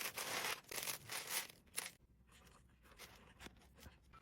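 Plastic LEGO parts bag being torn open and crinkled, several crinkly rustles over the first two seconds, then a few faint clicks of bricks.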